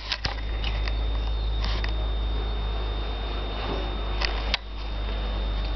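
Handheld camera's own running and handling noise: a steady low hum with a faint high whine, and a few light clicks, the sharpest about four and a half seconds in.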